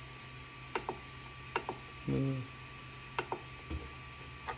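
Clicks of the Ender 3 V2's rotary control knob being turned and pressed to step through the menus, mostly in quick pairs about a second or so apart. There is a brief low sound a little after two seconds in, over a faint steady hum.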